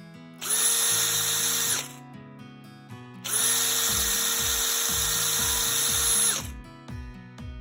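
Makita DF474D cordless driver drill running in two bursts, a short one of about a second and a half and then a longer one of about three seconds, each with a steady whine that eases in and out. Background music plays underneath.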